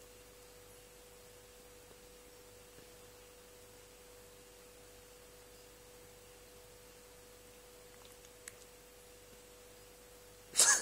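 Faint steady hum on a single pitch, with a brief loud rustling burst near the end followed by a few small clicks.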